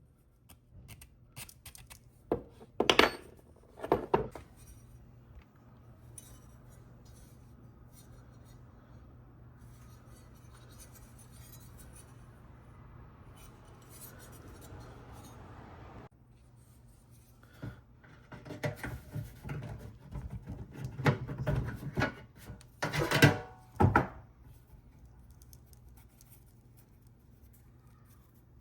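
Hand tools scraping and clinking on small metal parts in a few short spells, over a steady low hum.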